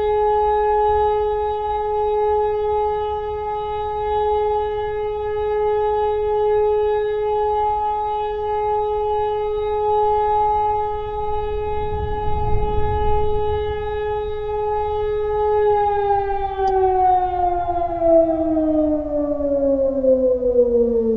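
Civil defence siren holding one steady, unbroken tone, the German all-clear signal. About three-quarters of the way through, the pitch starts sliding steadily down as the siren winds down.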